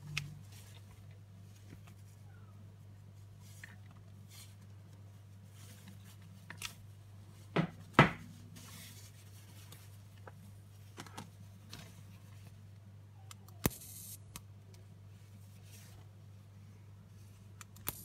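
Handling of a Zippo electric dual-plasma arc lighter insert: scattered light clicks and taps, with two sharp loud clicks about eight seconds in. A brief high buzz comes a little past halfway, and the buzz of the plasma arc starts at the very end. A steady low hum runs underneath.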